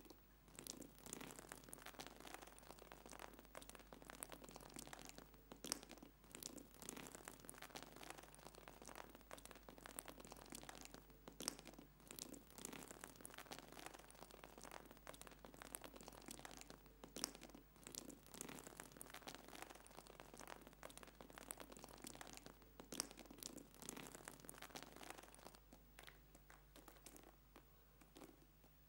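Hands kneading and pressing a mound of damp flour dough on a hard floor: faint, irregular crunching and scraping that thins out near the end, over a steady low hum.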